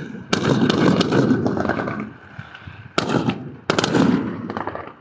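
Fireworks going off: three sharp bangs, about a third of a second in, at three seconds and just before four seconds, each followed by a rolling rumble, with crackling after the first.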